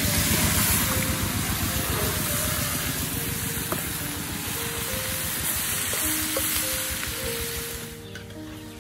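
Chopped raw meat hitting hot oil in a steel wok and sizzling as it is stirred with a metal spatula; the sizzle drops off near the end. Background music with a melody plays throughout.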